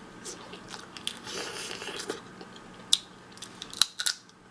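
Close-miked eating of crab: the shell cracking and crunching while the meat is picked out and chewed, in scattered sharp cracks with the sharpest about three seconds in and twice around four seconds.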